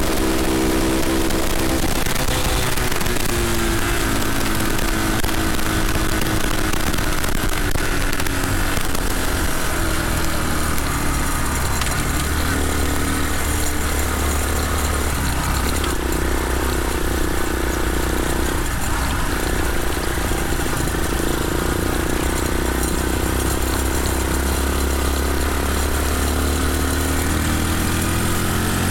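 Redcat CT70-clone mini bike's small single-cylinder four-stroke engine running under way, its pitch dropping about two seconds in, dipping briefly twice in the middle and climbing near the end as the throttle changes. Wind rushes across the microphone throughout.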